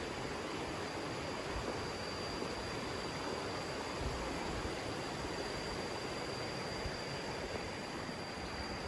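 Steady rushing of running water, like a stream or small waterfall, with a thin, steady high-pitched tone above it.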